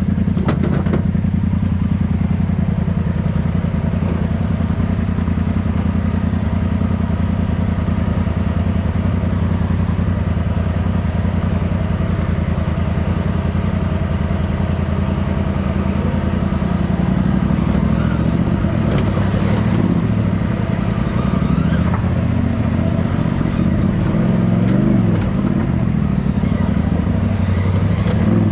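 RZR side-by-side engine running at low speed while crawling down a rocky trail. The note stays low and steady, with a few knocks and clatter near the start and again later on, and the pitch wavers up and down in the second half as the throttle is worked over the rocks.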